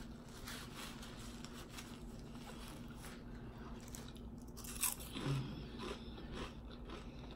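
Ridged potato chips being bitten and chewed close to the mouth: a string of short, crisp crunches, the loudest about five seconds in.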